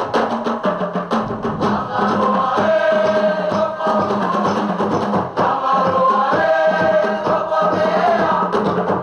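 Cook Islands group song: a chorus of voices singing together over a steady beat of drums.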